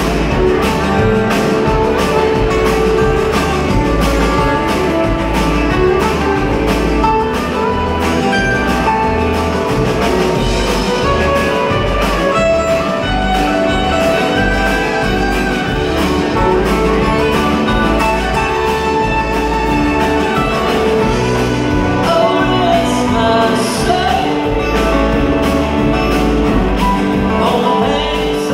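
A live string band of acoustic guitars, mandolin, fiddle and upright bass with a drum kit, playing a song with a steady beat.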